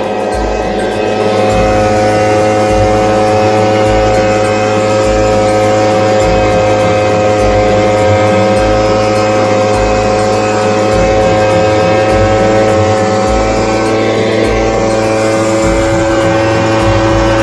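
Backpack mist duster blower's small two-stroke engine and fan running steadily, blowing granular fertilizer out through the long discharge tube. The sound grows a little louder over the first second or two, then holds steady.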